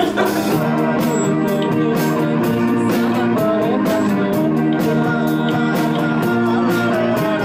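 Punk rock band playing: electric guitars over drums, with a steady beat of about four strokes a second.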